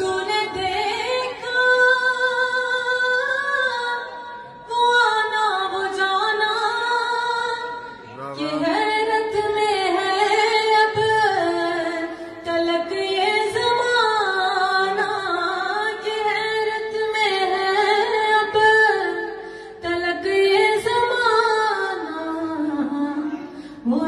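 A woman's solo voice reciting a devotional poem in a sung style, drawn out in long ornamented melodic phrases, with brief pauses for breath about 4, 8 and 20 seconds in.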